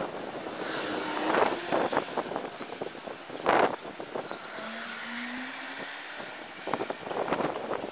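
Street traffic going by out of view, with gusts of wind buffeting the microphone in sharp irregular bursts, the strongest about three and a half seconds in and again near the end.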